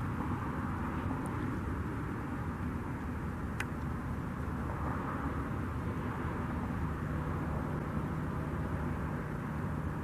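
Steady low outdoor rumble of distant motor traffic, with a faint hum joining about seven seconds in and a brief faint click near the middle.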